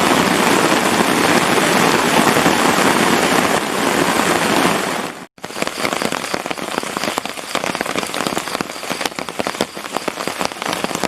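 Heavy rain falling steadily, a dense even hiss. Just after five seconds it cuts off abruptly and gives way to a quieter patter of many separate drops.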